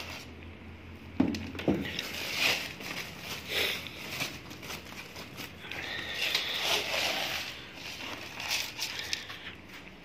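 Woven plastic sack of pigeon feed rustling and crinkling as it is opened and handled, with dry grain rattling as it is scooped out into a plastic bowl.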